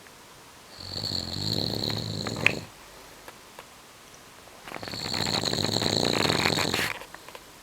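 Snoring: two long, rattling snores of about two seconds each, with a thin whistle running over each. The first snore ends in a sharp click.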